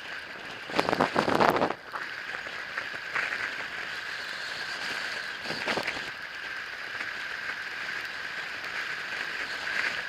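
An e-bike ridden on a snowy road: a steady high whine under a hiss of tyre and wind noise, with a loud crackling rush about a second in and a shorter one near six seconds.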